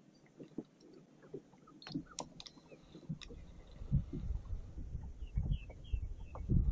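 Small waves slapping irregularly against the hull of a bass boat, with gusty wind rumbling on the microphone and building from about halfway through.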